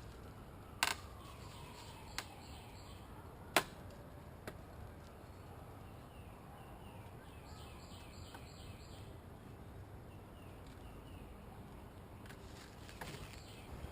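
Wind rumbling on the microphone, broken by a few sharp knocks and clicks from handling the wooden bee package and hive gear. The loudest knock comes about three and a half seconds in, and a small cluster of knocks comes near the end.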